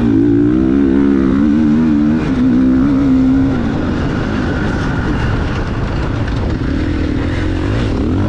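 GasGas MC 450F motocross bike's single-cylinder four-stroke engine revving under the rider, its pitch swinging up and down in the first couple of seconds, holding steady until about halfway, then rougher with the throttle blipping.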